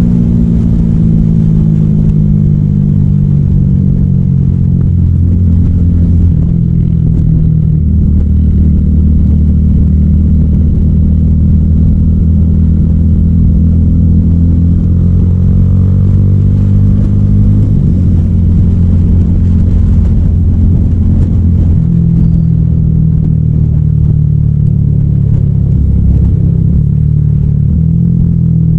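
300SR motorcycle engine running through an Akrapovic M1 exhaust, held at a steady note with a few small shifts in pitch as the revs change.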